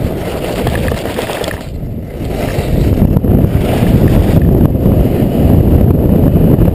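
Wind buffeting an action camera's microphone during a fast ski descent, mixed with the hiss and scrape of skis on packed snow. The noise swells and eases with each turn and grows louder about two seconds in.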